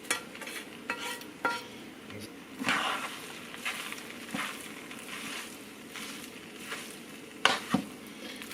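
Chicken, onions and bell peppers frying in a pan with a steady sizzle, while a utensil stirs the food and clinks and scrapes against the pan in short knocks, the loudest near the end.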